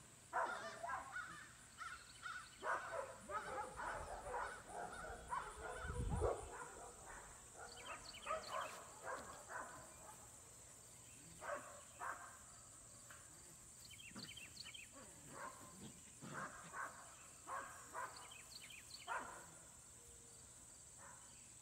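Short animal calls, barks or caws, come one at a time at irregular intervals throughout, with a low thump about six seconds in.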